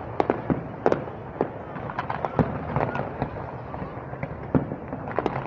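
Fireworks going off: a rapid, irregular run of sharp bangs and crackling pops, several a second, over steady background noise.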